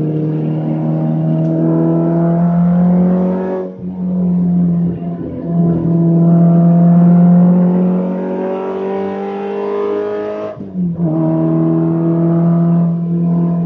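Alfa Romeo Alfetta GTV's standard four-cylinder twin-cam engine running hard under racing load, its pitch climbing steadily through the revs. The revs drop sharply twice, about four seconds in and again near eleven seconds, then pick up again, and are steadier near the end.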